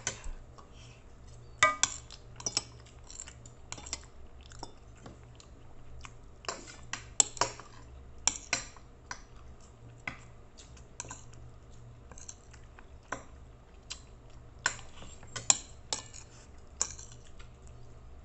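Metal fork and spoon clinking and scraping against a plate in irregular sharp clicks, with chewing between them. A faint steady low hum runs underneath.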